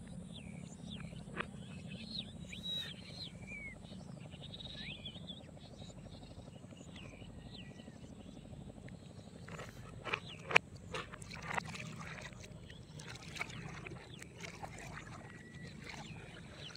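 A steady low engine hum runs throughout. Short high chirping calls come in the first few seconds, and a few sharp knocks come around the middle.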